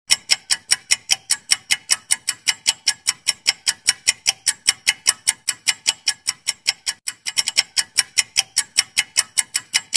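Countdown timer ticking like a clock: rapid, even ticks, about five a second, with a brief break about seven seconds in before they carry on.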